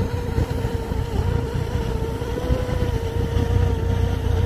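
Motorboat engine running steadily, a continuous hum that wavers slightly in pitch, over a low rumble of wind on the microphone.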